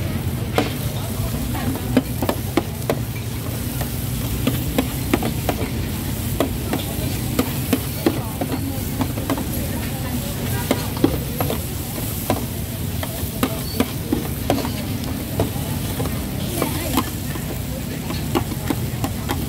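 Stir-frying in a wok: a metal spatula clanks and scrapes against the pan at an irregular pace, about one or two strikes a second, over steady sizzling.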